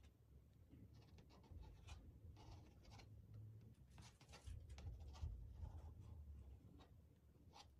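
Metal offset spatula faintly scraping cream cheese frosting around the side of a crepe cake, a run of short scratchy strokes with small ticks where the blade touches the cake board.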